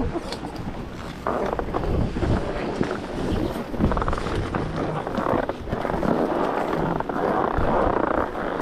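Wind buffeting an action camera's microphone as a rough, continuous rumble, with crunches of boots on packed snow.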